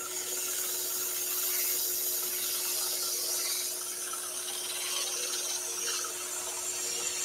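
Axminster scroll saw running with a steady motor hum, its fine reciprocating blade cutting through a wooden board as it is fed by hand, giving a continuous high rasping hiss.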